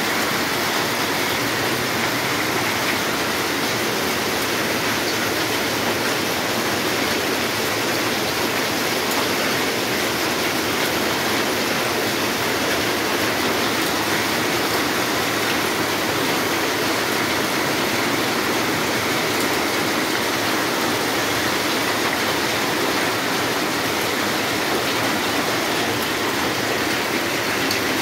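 Hail and rain falling hard, hailstones beating on roofs and concrete in a dense, steady patter that keeps an even level throughout.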